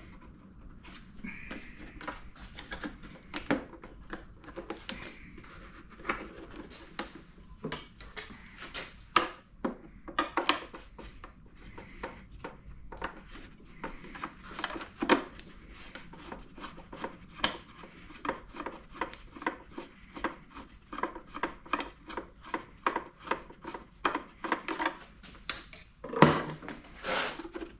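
Irregular clicks, taps and clatter of hand tools and small hard parts while a pancake air compressor is being unscrewed and taken apart, with a louder knock and clatter near the end.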